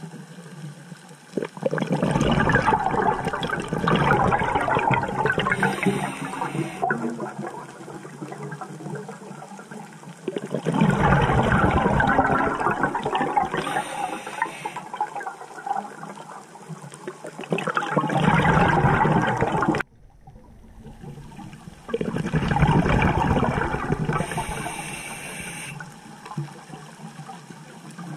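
A scuba diver breathing through a regulator, heard underwater. There are four long bubbling exhalations, a few seconds apart, with short hissing inhalations between them.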